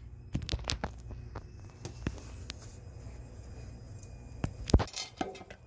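Handling noise from a phone held close in the hand: scattered clicks and rubbing knocks, with one sharper knock near the end, over a steady low hum.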